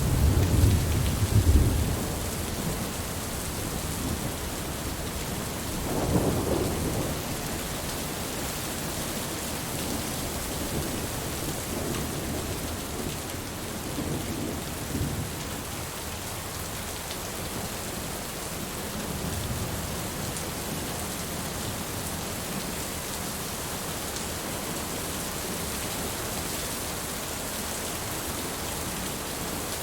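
Steady rain with rolling thunder. The thunder is loudest in the first couple of seconds, then rumbles more faintly about six, fifteen and twenty seconds in.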